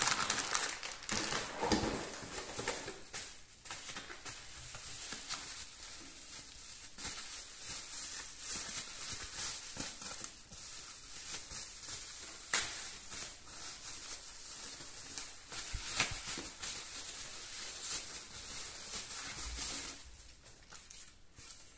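Plastic packaging crinkling and rustling as bags of metal mounting brackets and a sheet of foam wrap are handled and pulled apart, with scattered sharp clicks and taps from the parts and box.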